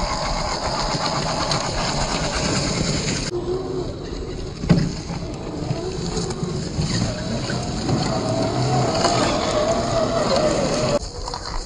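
Electric motors and gear trains of radio-controlled scale rock crawlers whining as they climb over loose rocks, the whine wavering up and down in pitch with the throttle. One sharp knock about five seconds in.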